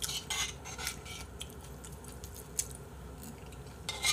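Metal spoon scraping against a bowl in a few short strokes, most of them in the first second and one more near the end.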